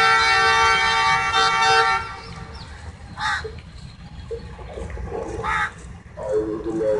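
Diesel locomotive horn of a departing Pakistan Railways ZCU-20, one steady multi-tone blast that stops about two seconds in. Then two short crow caws.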